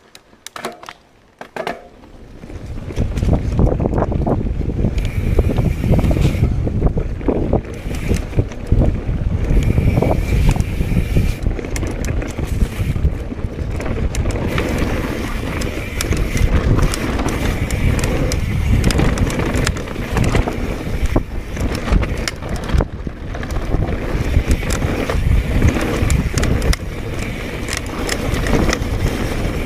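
Mountain bike riding fast down a dirt forest trail: wind buffeting the chest-mounted camera's microphone over the rumble of tyres on dirt, with frequent knocks and rattles from the bike over bumps. It starts quieter with a few clicks and the rumble builds about two to three seconds in.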